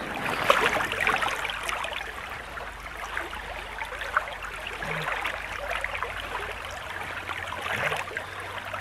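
Shallow stream running and rippling over stones, with water stirring and splashing from hands holding a brown trout in the current; the splashing is livelier in the first second or two.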